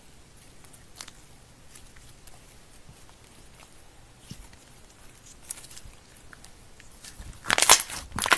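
Clear glitter slime squeezed and pulled between fingers, giving faint sticky clicks and pops, then a run of louder crackling pops near the end.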